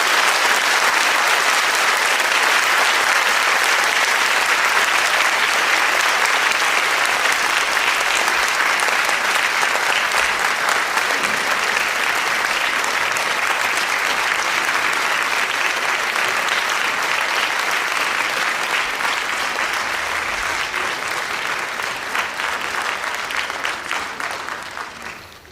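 Large crowd applauding steadily, slowly fading out near the end.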